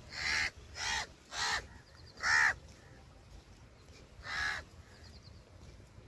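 A crow cawing five times: four harsh caws in quick succession, the fourth the loudest, then one more about four seconds in.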